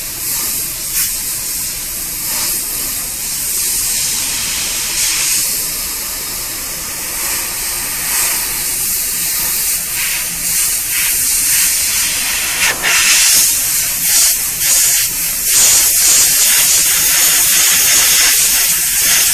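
Badger Anthem 155 airbrush spraying paint on compressed air at about 60 psi: a steady, loud hiss of air and atomised paint that swells and eases a little as the trigger is worked.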